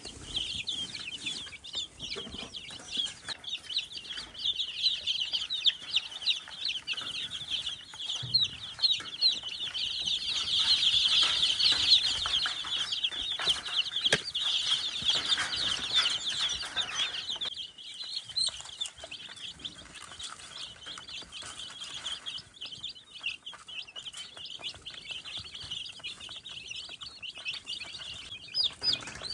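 A crowd of young chicks peeping continuously, many short high cheeps overlapping. The chorus grows louder about a third of the way in, then drops back a little past the middle.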